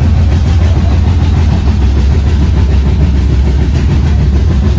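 Steady, loud low rumble of a passenger train running, heard from inside the coach.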